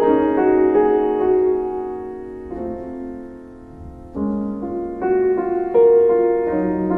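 Slow solo piano music: notes die away to a soft lull, then new chords are struck about four seconds in and again near six seconds.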